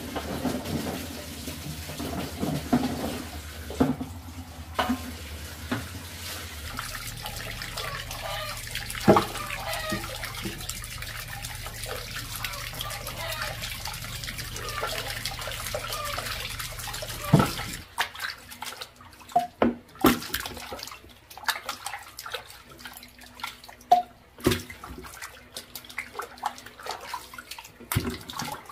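Tap water pouring steadily into a steel basin while peeled cassava roots are scrubbed and splashed by hand. About 17 seconds in, the running water stops, and separate splashes and knocks follow as the roots are handled in water.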